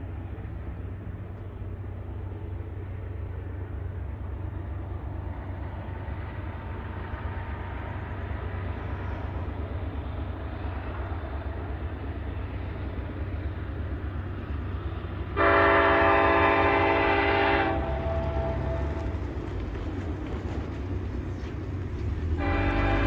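An approaching EMD SD70ACe diesel locomotive, its engine a steady low rumble that slowly grows louder. Near two-thirds of the way through it sounds its multi-chime air horn for about two seconds, then blows it again just before the end.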